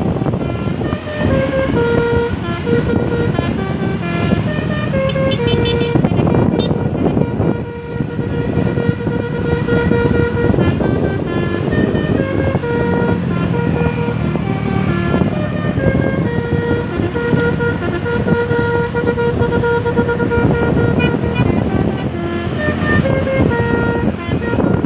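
Basuri V3 telolet multi-tone bus horn, its roof-mounted trumpets playing a tune of short held notes that step up and down in pitch, with vehicle noise underneath.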